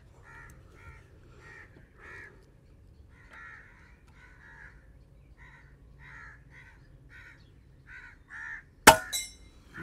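Crows cawing over and over, about two short calls a second. About nine seconds in comes a single sharp crack, the loudest sound, with a brief ring after it: a shot from the P15 PCP air rifle.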